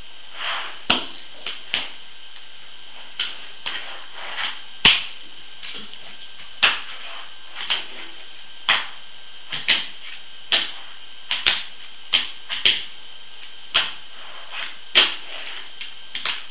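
Tech Deck fingerboard clacking on a wooden table: sharp clicks of the small board and its plastic wheels landing and snapping, very roughly one a second and unevenly spaced, some led in by a short rush of the wheels rolling.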